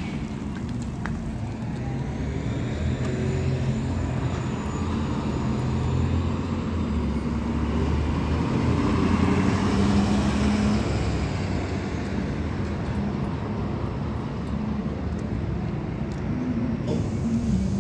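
City street traffic: cars and a pickup truck driving past, swelling to its loudest about halfway through and easing off after.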